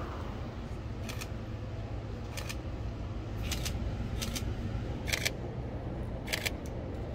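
Camera shutter firing about six times at uneven intervals, each a short sharp click, over a steady low background rumble.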